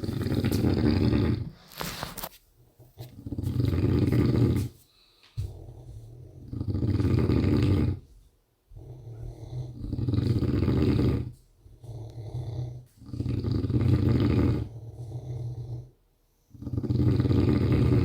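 Heavy snoring from a deep sleeper. Six loud, rasping snores come about every three seconds, each lasting about a second and a half, with quieter breathing sounds between them.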